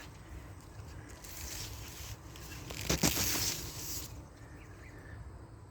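Rustling and handling noise as a birdhouse is checked among grapevine leaves. It swells for a couple of seconds, with a few sharp clicks and knocks about three seconds in.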